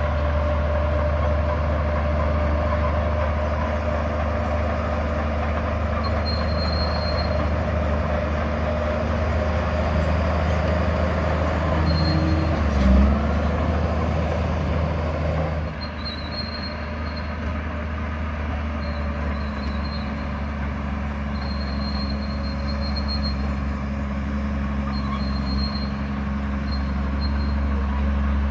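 Bulldozer's diesel engine running steadily under load, with a steady high tone over it for the first half. A single thump comes about 13 seconds in, and a couple of seconds later the sound drops a little and the high tone stops.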